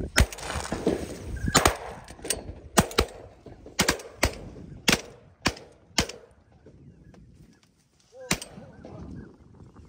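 Shotgun volley at ducks flushing off the water: about a dozen shots in the first six seconds, some overlapping a fraction of a second apart as several guns fire, then a single shot about eight seconds in.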